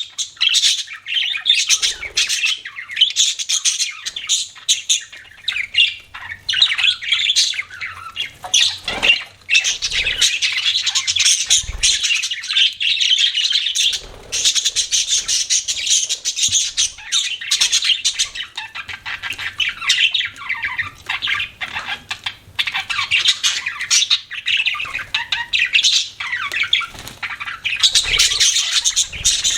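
Several pet budgerigars chattering and chirping together in a dense, continuous stream of short squawks and warbles, with a few brief soft thumps.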